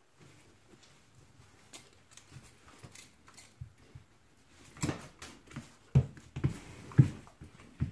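Two dogs play-fighting: soft scuffling and light clicks at first, then from about five seconds in a run of short, low play growls, loudest around six and seven seconds.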